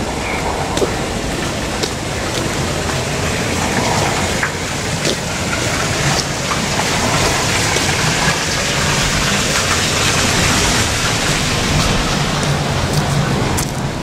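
Steady road traffic noise with the hiss of tyres on a wet road, swelling as a vehicle goes by about two thirds of the way through, with a few light clicks.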